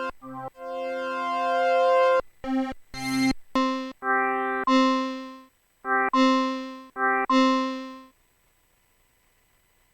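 Synthesizer chords played as an irregular run of short stabs and longer held chords, stopping about eight seconds in.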